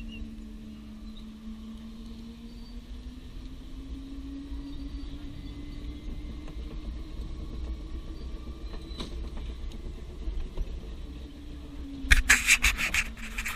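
Go-kart's small engine running under way, its pitch rising and falling as the kart speeds up and slows through the turns, over a low rumble. Near the end there is a short burst of loud, crackling noise.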